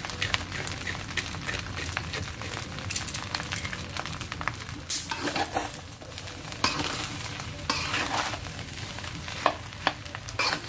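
Spatula stirring and tossing fried rice in a stainless steel pan: irregular scrapes and clicks of the utensil against the pan over a light sizzle, with a steady low hum underneath.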